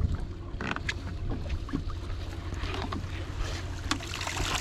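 Boat noise: a steady low rumble with scattered light knocks and water splashes.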